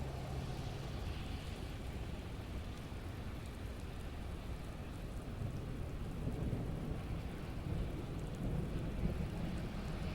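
Steady rain falling, with a low thunder rumble that builds and grows louder through the second half.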